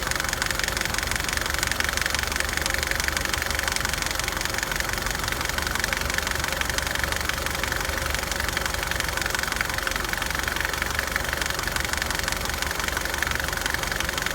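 2009 Nissan Altima engine idling with a loud, continuous, rapid clicking from the passenger side of the engine. The cause of the clicking is not known.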